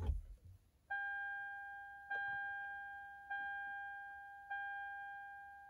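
2011 Lexus RX 350's dashboard warning chime ringing repeatedly as the ignition is switched on with the engine off. It sounds five times about a second and a quarter apart, each a clear bell-like ding that fades before the next.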